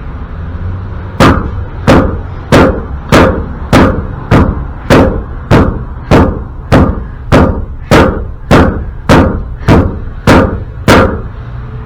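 A hammer strikes metal seventeen times in an even rhythm, about one and a half blows a second, each with a short ring. The blows land on a seized wheel bearing and retaining ring on the axle, which does not budge.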